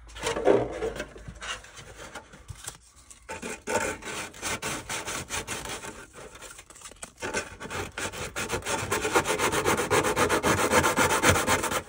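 Hand sanding the cut edges of a clear Lexan (polycarbonate) RC car body's wheel arches: quick back-and-forth rasping strokes that smooth off the rough cut. There is a short pause about 3 s in, and the strokes come faster and steadier over the last few seconds.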